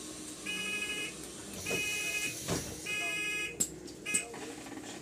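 Rear-door warning buzzer on a GAL EH200 bus's Ventura doors, sounding three evenly spaced buzzes of about half a second each, a little over a second apart. Two sharp clicks follow the last buzz.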